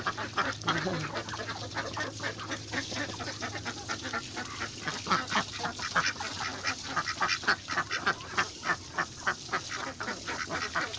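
Domestic ducks feeding in their pen, making a dense run of short rapid quacks and bill sounds that gets busier from about five seconds in.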